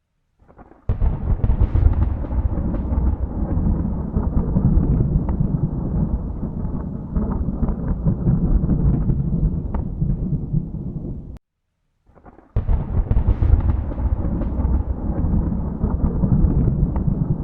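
Thunder rumbling in a long, low, rolling peal that starts about a second in and cuts off suddenly past the middle. After about a second of silence, a second roll of thunder begins.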